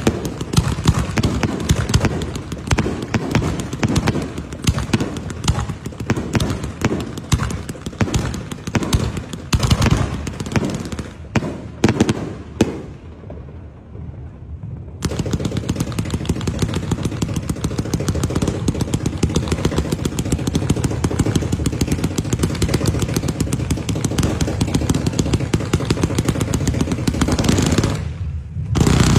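Fireworks going off in rapid volleys of bangs and crackling. The crackling eases for a couple of seconds about halfway through, then comes back as a dense, steady crackle.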